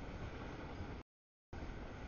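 Steady low rumble and noise of a double-stack container freight train rolling past. About a second in, the sound is cut by a dead-silent audio dropout of roughly half a second.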